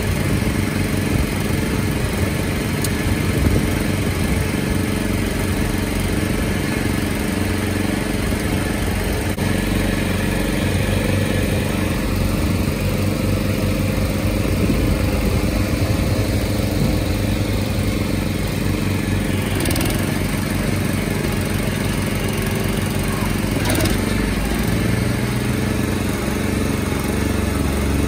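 Small gas engine on a round-bale wrapper running steadily under load, mixed with a loader tractor's diesel engine running close by. A couple of short knocks come about two-thirds of the way through.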